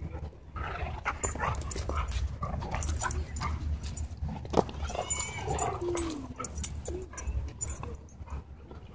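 A dog whining and whimpering in short high-pitched cries, with a lower falling whine about six seconds in.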